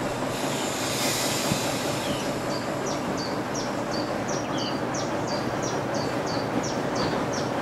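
Ruston & Hornby diesel shunter's engine running steadily as the locomotive creeps up to the platform. A short hiss comes in the first couple of seconds. From about two and a half seconds in, a bird repeats a two-note high chirping call about twice a second over the engine.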